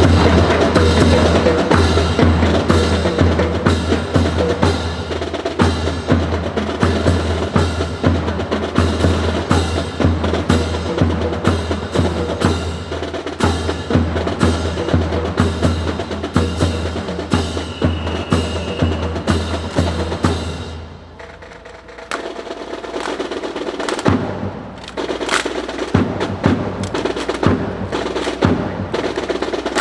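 Percussion-heavy music with a steady, heavy drum beat. About two-thirds of the way in, the beat drops out and the music quietens, leaving sharp clacks and knocks that come at irregular times.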